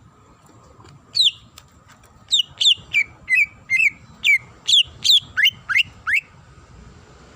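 A cucak ijo (green leafbird) singing a run of about a dozen sharp, clear whistled notes in quick succession, starting about a second in. Most notes slide steeply down in pitch; the last three slide up.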